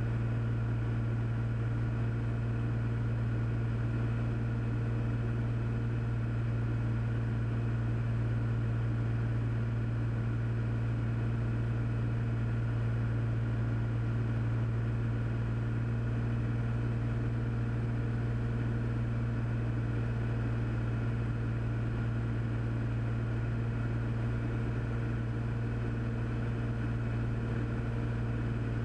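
Cessna 400's turbocharged six-cylinder Continental engine and propeller droning steadily at approach power, with an even, unchanging pitch.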